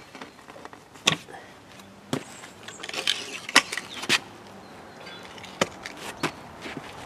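Stone planter troughs and slate pieces being shifted and set down on stone paving: a handful of sharp knocks at irregular intervals, with faint scraping between them.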